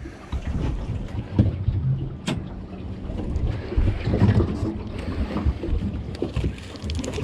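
Wind rumbling on the microphone, with rustling and knocks from gear being handled and a sharp click a little over two seconds in.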